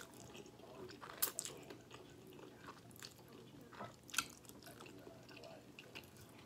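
Faint close-up eating sounds: chewing and short wet slurps as strands of pasta in Alfredo sauce are drawn into the mouth, the clearest about a second in and at about four seconds.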